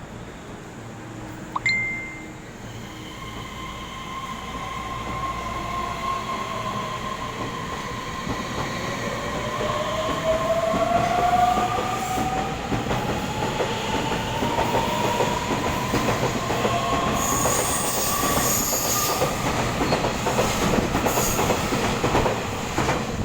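Taiwan Railways EMU3000 electric train pulling out and accelerating: its traction motors give a whine that rises steadily in pitch, over wheel and rail noise that grows louder. A brief sharp click and short high tone sound about two seconds in.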